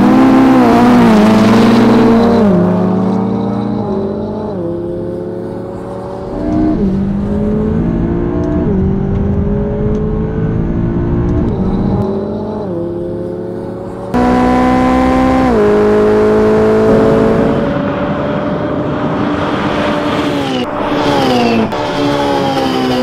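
Two twin-turbo V8 supercars, a McLaren 570S and a Ferrari 488 Spider, launching from a standing start and accelerating hard, the engine note climbing and then dropping sharply at each upshift, about every two seconds. About 14 seconds in the sound cuts abruptly to another run of rising revs and gear changes, with a car rushing close past near the end.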